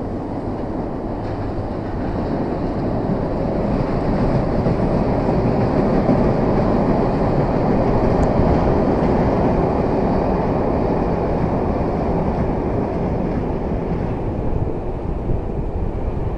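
ScotRail passenger train crossing the steel Forth Bridge high overhead: a steady, dense rumble of wheels on rail. It builds over the first few seconds, is loudest around the middle, then eases slightly.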